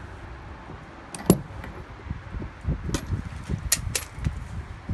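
Metal tool clinks and knocks as a socket wrench is handled and fitted onto the drain plug of an RV hot water tank: one sharp click about a second in, a scatter of dull knocks, and a heavier knock near the end.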